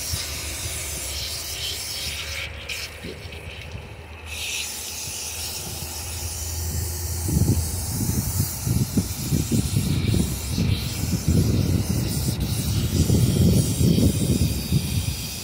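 Garden hose spraying water onto a dog's wet coat: a steady hiss of water. From about seven seconds in, loud irregular low rumbles come in over it.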